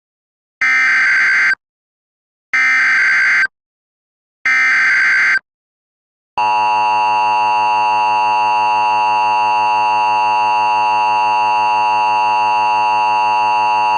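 Emergency Alert System header: three bursts of SAME digital data tones, each about a second long with short gaps between them, then the steady two-tone EAS attention signal starting about six seconds in. The sequence marks the start of an EAS alert, here a child abduction (Amber) alert.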